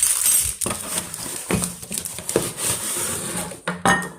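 Kitchenware being handled: a series of knocks and clatter as the pieces of a tiered serving stand are picked up and set down, with some rustling.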